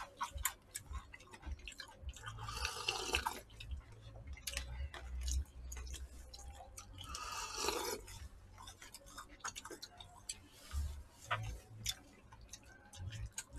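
Eating sounds at a table: scattered clicks and taps of chopsticks and spoons against plastic food containers, with chewing. Two longer noisy stretches stand out, one about two and a half seconds in and one about seven seconds in.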